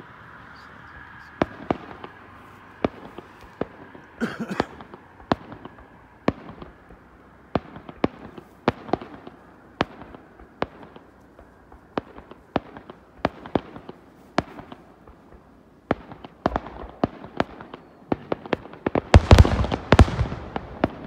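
Aerial fireworks shells bursting in a display: a steady run of sharp bangs at about one a second. Near the end they come faster and louder, in a dense volley.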